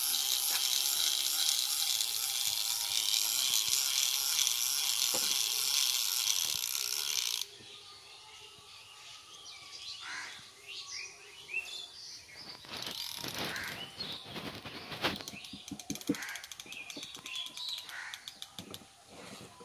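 A loud, steady, high-pitched buzzing hiss that cuts off abruptly about seven seconds in. Then there are birds chirping, with scattered sharp clicks.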